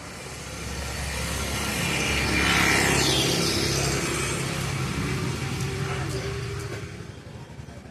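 A motor vehicle driving past, growing louder to a peak about two and a half seconds in and then fading away.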